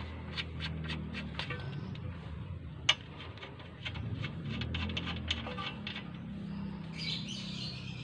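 A run of sharp metallic clicks and taps, several a second with one louder clack about three seconds in, from tools and hardware on the bolts at the lower mount of a front strut. A low hum runs underneath.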